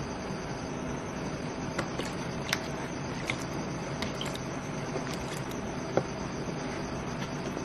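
Light clicks and taps of a plastic bottle and jug being handled and wiped over a plastic basin, scattered through the middle, the sharpest one about six seconds in, over a steady background hiss.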